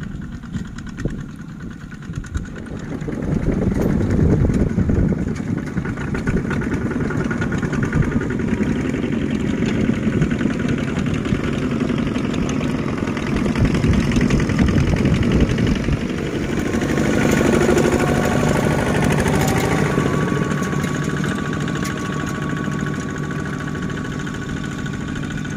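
Single-cylinder diesel engine of a two-wheel walking tractor running steadily while pulling a trailer, with a rapid chugging beat; it grows louder about three seconds in.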